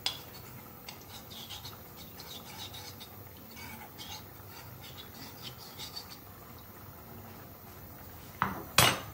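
Utensil scraping round a small ceramic bowl, stirring starch into a slurry, in soft repeated scrapes. Near the end come two sharp knocks.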